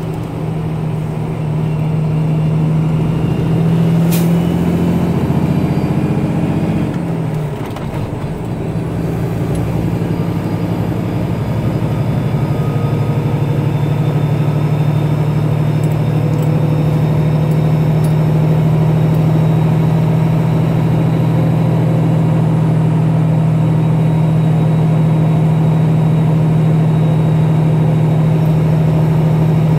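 Tanker truck's diesel engine running steadily on the road. Its note wavers and dips briefly about seven seconds in, then holds steady. A single sharp click about four seconds in.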